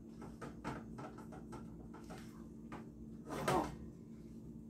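A spatula stirring and scraping cooked shredded pork in a pot, with its liquid cooked off, making a run of small clicks and scrapes against the pot. There is one louder clatter about three and a half seconds in.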